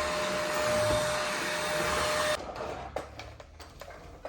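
Cordless stick vacuum cleaner's high-speed brushless motor running with a steady whine, then switched off and cutting out suddenly a little over two seconds in. A few light clicks follow.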